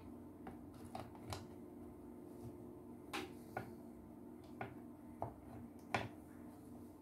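Several irregular sharp clicks and light knocks from hands handling a vacuum cleaner's plastic housing and cables, the loudest about six seconds in, over a steady low hum.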